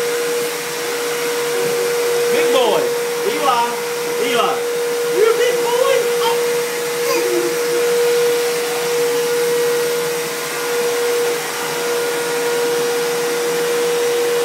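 Vacuum cleaner running steadily with a constant motor whine. Over it, in the first half, come several short rising and falling squeaky sounds.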